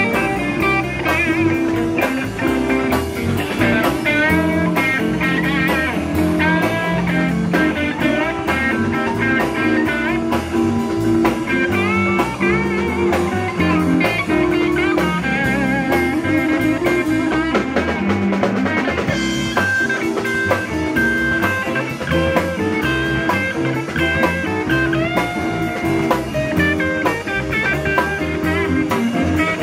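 Live blues-rock band playing: an electric guitar solo with bent, wavering notes over bass guitar and a drum kit.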